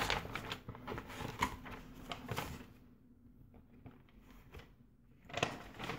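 Sheets of paper being rustled and handled, crackling over the first couple of seconds, then quieter, with another short rustle near the end.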